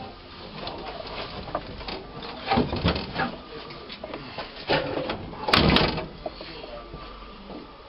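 Irregular mechanical clunks, knocks and rattles of work on a car's interior, in clusters, the loudest just under six seconds in.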